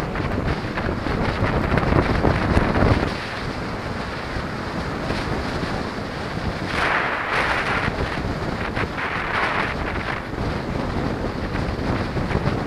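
Wind rushing over the microphone of a moving rider, mixed with road and traffic noise. Two louder hissing stretches come about seven and about nine seconds in.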